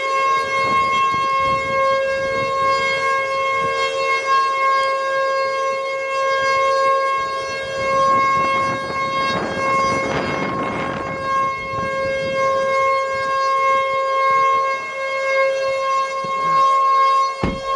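An outdoor civil-defense (storm warning) siren sounds very close by, holding one steady, loud tone. Heavy rain noise swells under it about halfway through, and there is a short knock near the end.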